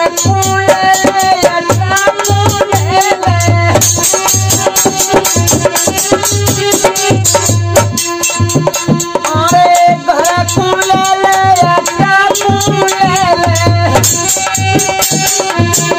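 Rajasthani folk bhajan on harmonium and dholak. The dholak keeps a quick, steady beat with deep bass strokes under the harmonium's held melody, and a man's voice sings in phrases that come and go.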